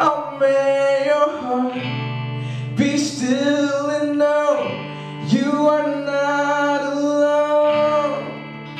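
A man singing several long held notes over strummed acoustic guitar, live.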